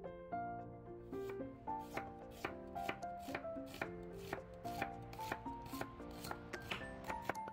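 A knife chopping on a cutting board in quick, even strokes, about three to four a second, starting about a second in. Light background music with plucked, keyboard-like notes plays underneath.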